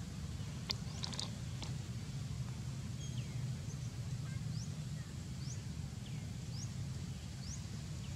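Steady low outdoor background noise with a few faint clicks about a second in. A bird calls with short, high, rising chirps about once a second from the middle on.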